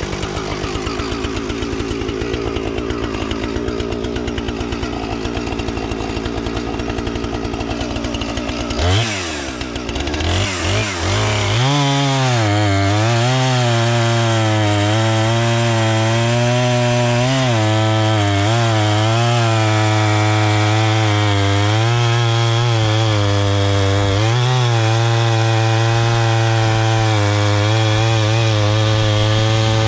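Husqvarna Rancher 455 two-stroke chainsaw idling, then revved up about nine seconds in and held near full throttle while cutting through a log. The engine pitch dips and recovers again and again as the freshly sharpened chain bites into the wood.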